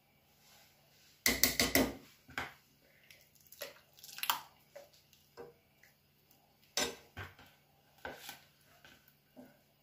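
Steel ladle clinking and scraping against a metal kadhai as cream is stirred into thick dal: a quick cluster of clinks about a second in, then scattered single knocks.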